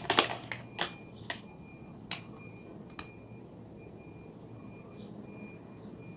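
Handling noise: about five sharp clicks and taps from small objects being handled close to the microphone during the first three seconds, the loudest just after the start, then quiet room tone.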